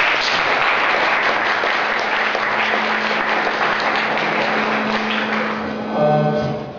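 Audience applauding, starting all at once and dying down near the end.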